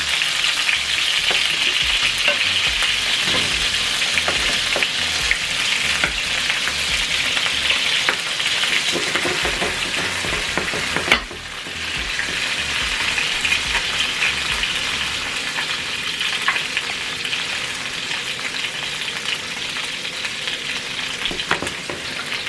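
Meatballs frying in a pan, with a steady crackling sizzle. About halfway through there is a sharp click, then the sizzle drops briefly and builds back up.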